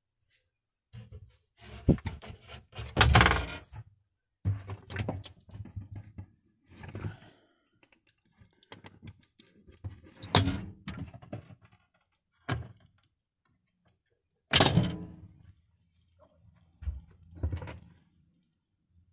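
Wooden cabinet doors and their latches being handled, opened and shut, giving bursts of thunks, knocks and clicks with short silences between. The loudest thunks come about three seconds in and again later on.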